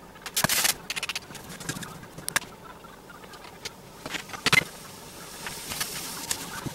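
Kitchen clatter: dishes and cooking utensils clinking and knocking at irregular moments, the loudest knock about four and a half seconds in. A faint sizzle from the skillet builds near the end.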